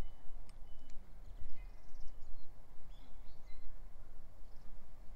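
Outdoor background noise: a steady low rumble with several faint, short bird chirps.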